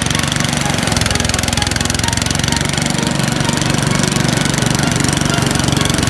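Engine of a portable rice thresher running steadily, with a fast, even beat.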